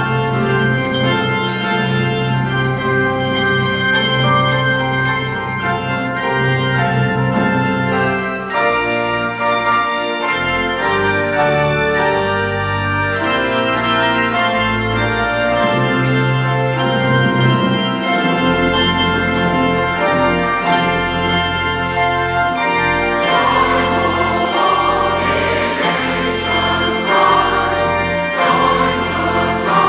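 Organ playing sustained chords over a deep, held bass line, as the introduction to a choral piece. About 23 s in, the sound grows fuller and brighter.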